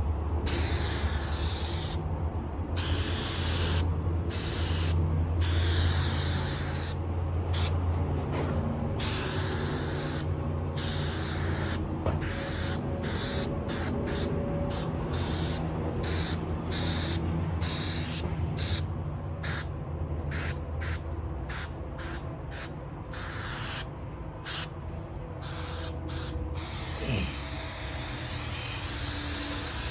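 Aerosol can of 3M Super 77 spray adhesive hissing in repeated bursts: a few longer sprays at first, then many short, quick bursts with brief gaps between them.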